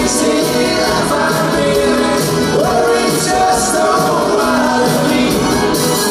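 Live band playing a song, with a man singing lead over guitars, piano, drums and congas.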